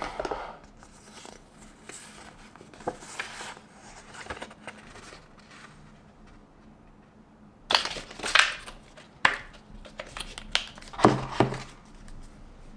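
Stiff paper and card rustling, sliding and tapping as an Apple documentation folder, its paper inserts and the Apple sticker sheet are handled. In the second half come a few louder bursts of rustling and scraping, and near the end the plastic power adapter is lifted from the cardboard tray.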